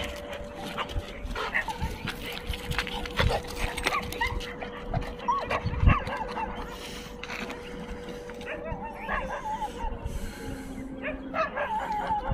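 Dogs barking and whining in short calls, with scattered knocks and a loud thump about six seconds in, over a faint steady hum.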